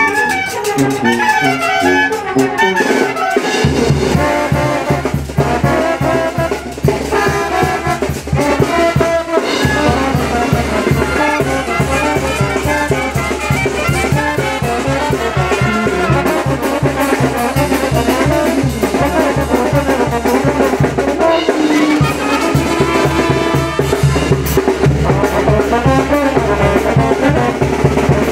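Brass band music with trumpets and trombones over a steady bass beat that comes in about three and a half seconds in.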